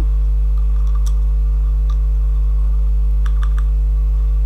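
A few separate keystrokes on a computer keyboard as text is typed, with three quick ones a little past three seconds in, over a loud steady electrical hum.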